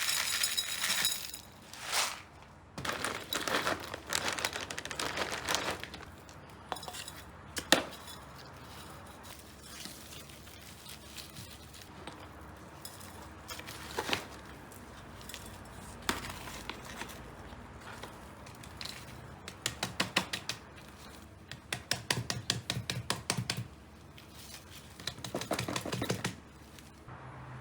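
Hands working with a plant pot and potting materials during repotting: bursts of light clinks, knocks and scraping, with a sharp click about eight seconds in and quick runs of rattling clicks near the end.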